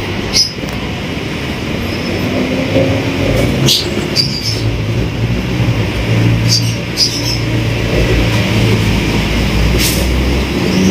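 A motor-driven machine running steadily with a low hum and rumble, with sharp clicks about half a dozen times.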